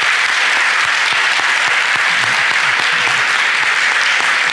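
A large audience applauding: steady, dense clapping with a few voices faintly beneath it.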